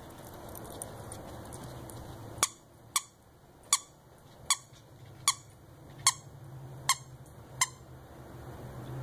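Squeaker in a plush orange bone toy, squeaked by a whippet biting down on it: eight short squeaks in a steady rhythm, about one every 0.8 seconds, starting about two and a half seconds in.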